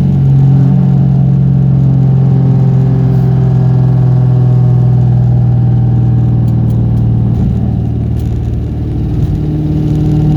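1998 Mustang Cobra's 4.6-litre DOHC V8 running steadily under way, its note dipping briefly about eight seconds in and then picking back up.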